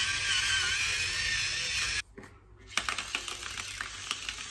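Electric pepper mill grinding peppercorns with a high, wavering motor whine. After a sudden break about two seconds in, a salt mill grinds with a run of quick crackling clicks.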